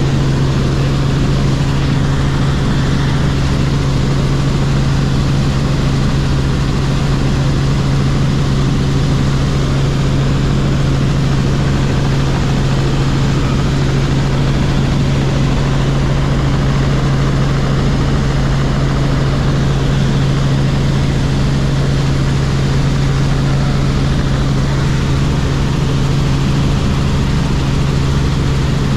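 Robinson R44 Clipper helicopter in flight, heard from on board: a steady, unbroken drone of engine and rotors with a strong low hum.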